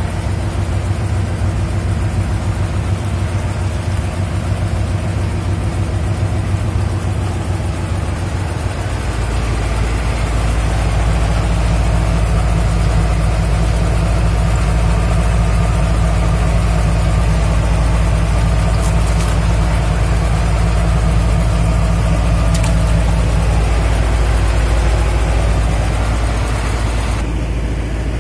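Boat's engine running steadily, a low drone that deepens and grows a little louder about nine seconds in.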